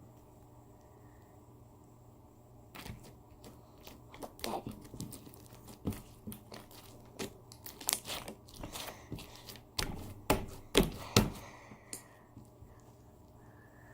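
Homemade slime being squished and stretched by hand, giving an irregular run of sticky pops and crackles that starts about three seconds in and stops near the end.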